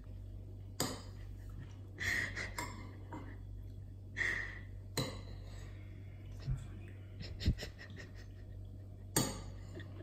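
A spoon clinking and scraping against a bowl as food is stirred: a string of sharp clinks, two of them ringing briefly. A steady low hum runs underneath.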